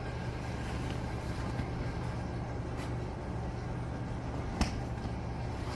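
Steady low rumble of street traffic heard from indoors, with a sharp click about three-quarters of the way through.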